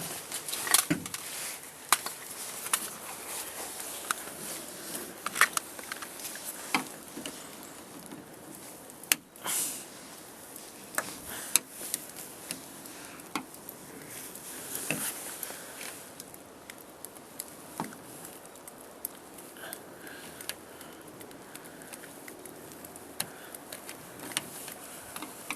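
Irregular clicks, taps and clinks of metal parts and tools as a door handle is worked into place inside a Chevy Astro's door panel, with a longer scraping rustle about nine seconds in.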